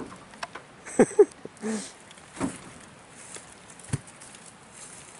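Llama nosing right up against the camera: a few short snuffles and bumps on the microphone, with a brief pitched sound about a second in.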